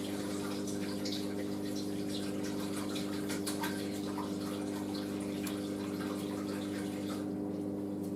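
Hoover SIX AAA160 washing machine's drain pump running with a steady hum, pumping out the final rinse water, with water trickling and splashing through it.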